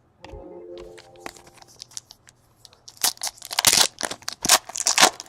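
Foil wrapper of a trading-card pack being torn open and crinkled: a run of sharp crackling rips that gets louder in the second half.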